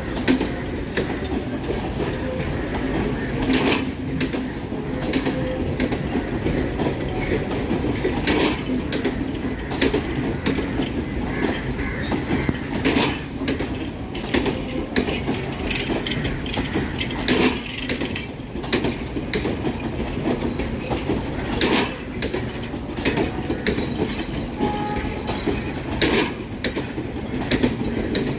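Intercity express train running on the rails: a steady low rumble with sharp, unevenly spaced clicks of wheels going over rail joints.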